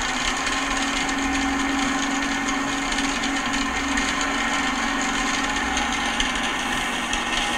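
Steady test signal played by a mobile phone inside an open metal bucket: an even hiss with a low steady tone running through it, loud and unchanging. This is the uncovered baseline level before any soundproofing material is laid over the bucket.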